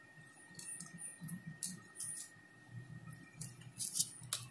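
Scattered light clicks and taps of spark plugs being set down and shifted by hand on a tabletop, a few sharper knocks near the end.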